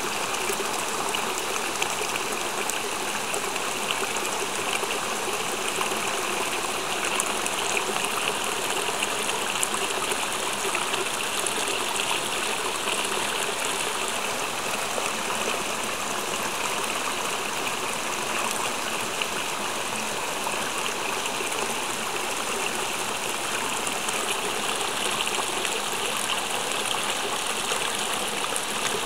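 Water pouring steadily from an inlet into a pond, splashing onto the surface in a continuous stream.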